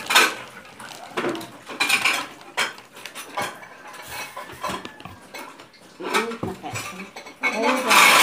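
A few sharp clinks and knocks of a small utensil against a glass mug and the tabletop as instant coffee is made, with a louder clatter near the end.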